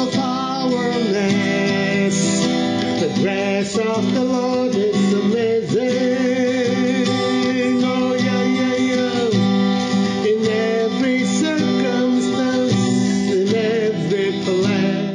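A worship song: a man singing a slow, wavering melody over acoustic guitar.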